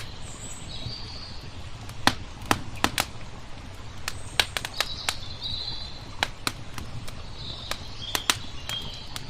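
Wood fire crackling with irregular sharp pops, a few of them loud, while small birds chirp in short high calls, over a steady low background rush.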